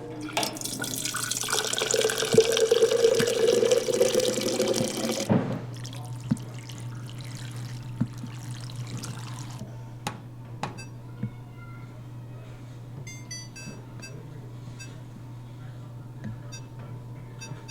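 Water running from a tap into a sink for about five seconds, then shut off. A steady low hum and a few faint clinks follow.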